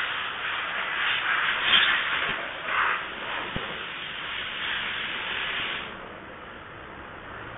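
Steady hissing noise that swells now and then and stops abruptly about six seconds in, with a single sharp click a little past halfway.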